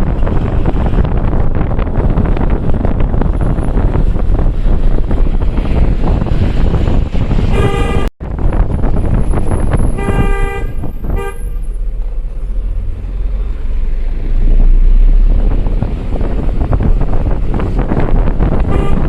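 Vehicle horn honking twice about halfway through: a short toot, then one lasting about a second, both over a steady loud rush of wind and road noise.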